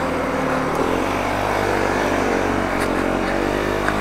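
A motor vehicle's engine running steadily, its pitch wavering slightly up and down.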